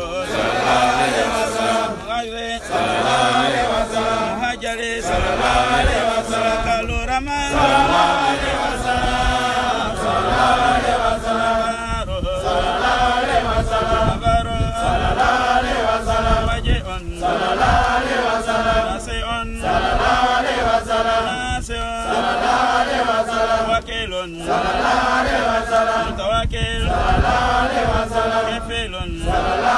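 Men's voices chanting a devotional litany of the names of God, in short repeated phrases about every two and a half seconds with brief breaks between them.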